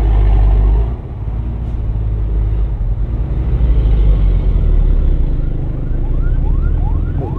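Heavy truck engine running loud and low while driving on the road. Near the end a series of short rising whoops sounds, about two a second, like an electronic horn or siren.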